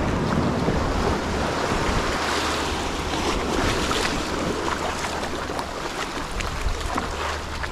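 Sea water surging and washing over rocks on a tidal rock platform, with wind buffeting the microphone.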